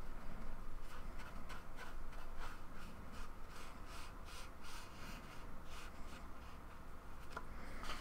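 Paintbrush bristles stroking and dabbing paint onto grey scrapbooking card, a soft scratchy stroke about two or three times a second.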